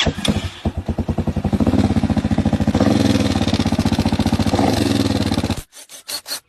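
Hi Speed Infinity motorcycle engine idling with a fast, even clatter, a noise put down to its cam gear set; it is switched off and stops abruptly about five and a half seconds in, followed by a few light clicks.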